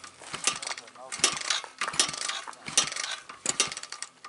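A 2012 Kawasaki KLX 110 dirt bike being kick-started: repeated kicks under a second apart. Each kick brings a burst of kickstarter ratchet and gear clatter as the engine turns over, and it does not catch.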